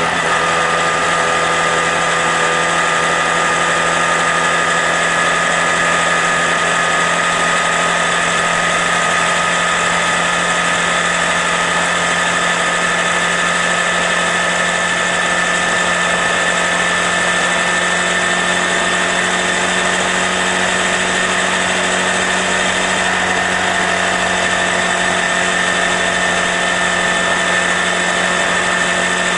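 Honda Grom's single-cylinder engine running at a steady cruising speed: a constant whine over a steady rushing noise.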